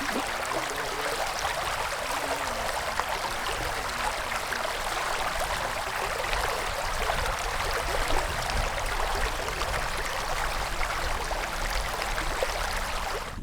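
Steady rush of running creek water, an even hiss without change.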